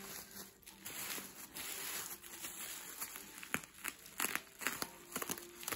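Plastic bubble wrap crinkling and tearing as it is cut and pulled open with a craft knife, with many small sharp crackles.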